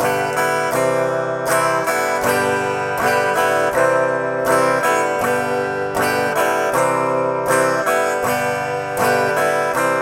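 Acoustic guitar strummed in a steady down-stroke pattern: the chords ring, and every few strokes a short break lets the open strings sound while the fretting hand lifts to change chord shape.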